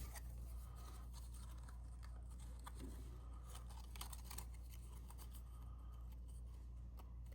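Cardstock pieces being handled and fitted together, with scattered faint clicks and scrapes of paper over a steady low hum.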